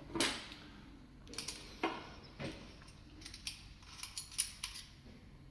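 Replica pistol frame parts being fitted together by hand: scattered light clicks and knocks, several of them over a few seconds.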